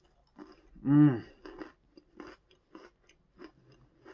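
A mouthful of seasoned pretzel stick being chewed, with short crunches about twice a second. About a second in comes a brief hummed voice sound through closed lips, rising and falling in pitch, louder than the chewing.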